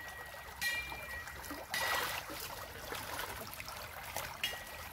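Shallow stream water running and trickling over stones, a steady wash of noise with a brief louder rush of water about two seconds in.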